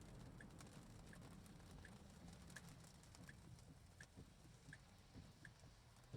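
Faint sound inside the car's cabin: light rain pattering on the car over a low road rumble, with a soft tick repeating evenly about every three-quarters of a second.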